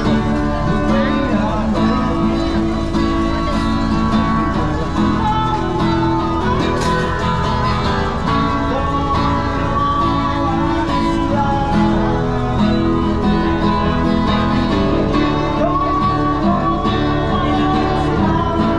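Music on plucked acoustic guitar and other strings, played continuously.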